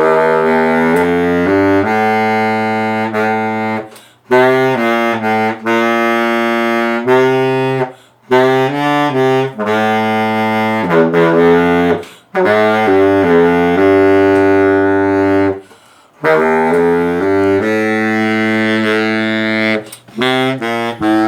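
Baritone saxophone playing a solo melody low in its range, in phrases of about four seconds separated by short pauses.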